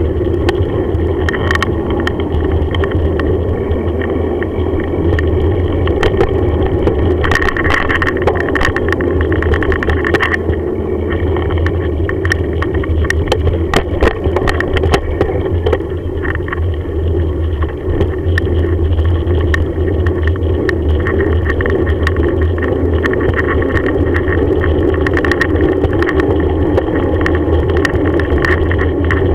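Bicycle rolling along a tarmac path, heard through a camera mounted on the bike: a steady rumble and rattle from the tyres and frame, with scattered clicks and knocks over bumps.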